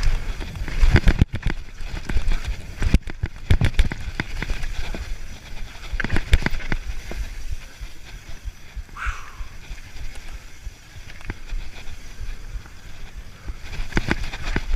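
Downhill mountain bike rattling and knocking over rough trail, with wind buffeting the microphone as a low rumble. There is a brief high squeal about nine seconds in.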